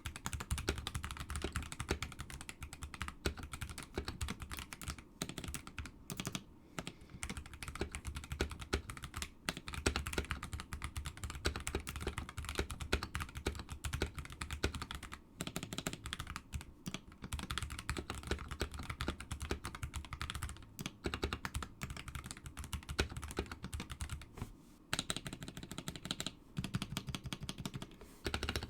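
Typing on a stock Cooler Master CK720 65% mechanical keyboard with Kailh BOX V2 switches and lubed stabilizers. It is a fast, continuous run of key clacks, broken by a few brief pauses.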